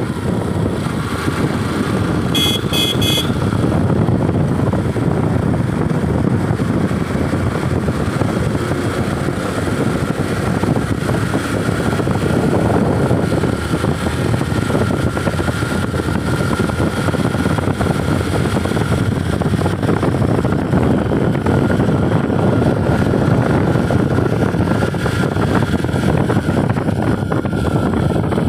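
Motorcycle on the move: a steady blend of engine, road and wind noise on the microphone. About two and a half seconds in come three short high beeps.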